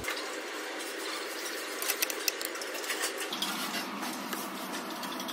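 Fork clicking and scraping against a bowl of shredded salad while eating, over steady room noise, with a few sharper clicks about two seconds in.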